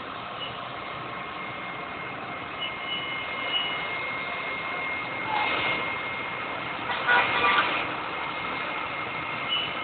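Vehicle engines idling in a steady background of street noise, with a thin steady high whine over it. Two brief, louder noises break in about five and seven seconds in.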